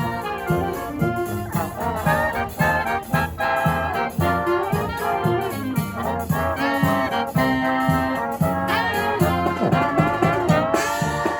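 Brass marching band playing a lively tune: trumpets and trombones carry the melody over a steady beat.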